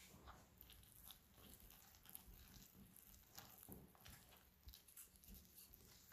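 Wooden spoon stirring a wet, shaggy flour dough in a glass bowl: faint, irregular scraping and squelching strokes.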